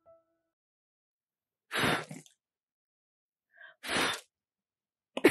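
Two short, sharp bursts of breath from a person, about two seconds apart, the second with a faint intake just before it.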